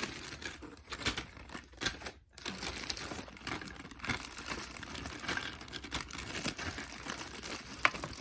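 Toy packaging rustling and crinkling as it is handled and opened, with irregular light clicks and a sharp click near the end.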